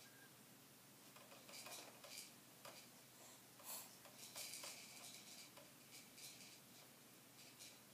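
Faint, irregular clicking and rattling of a baby jumperoo's plastic seat, tray toys and frame as the baby bounces in it.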